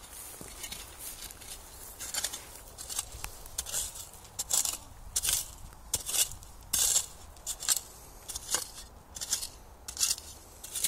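Small metal spade digging into dump soil, its blade scraping and crunching into the ground in a quick, irregular series of strokes, one or two a second, starting about two seconds in.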